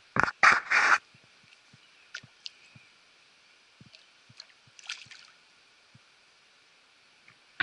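Water splashing and sloshing close to the microphone: three quick, loud splashes less than a second in, then faint scattered drips and ticks, with a smaller splash about five seconds in.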